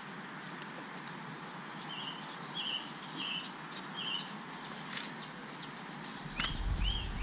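A bird calls a short note over and over, about one or two a second, against a steady outdoor background hiss. There is a single sharp click about five seconds in, and a low rumble comes in during the last second.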